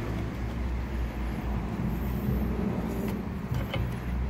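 Steady low mechanical rumble and hum, like a running engine, with a few faint light taps near the end.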